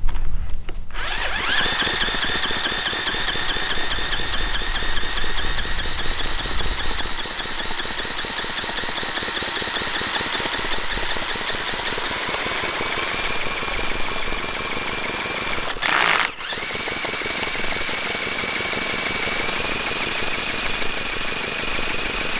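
Cordless drill spinning over a Jerry Howell V-twin model petrol engine: a steady high whine from the drill with the engine's rapid rhythmic chatter beneath, and no firing. The engine is flooded and kicking fuel out. There is a short break about two-thirds of the way through, after which the whine comes back slightly higher.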